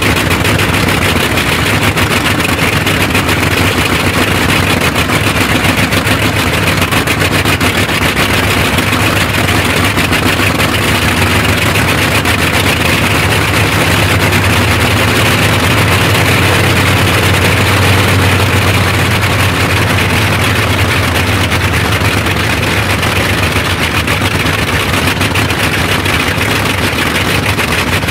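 Bristol Hercules supercharged 14-cylinder radial engine running steadily on a test stand with its propeller turning, a dense, even, loud exhaust beat that swells slightly about halfway through.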